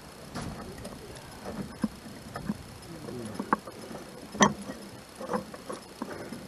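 Irregular clicks and knocks of hand tools and metal parts being handled during lawnmower wheel work, with one sharper knock about four and a half seconds in.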